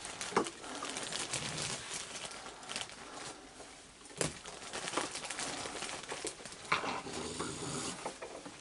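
Raccoons feeding on a wooden deck: scattered small taps, scrapes and chewing noises, with a sharper knock about four seconds in.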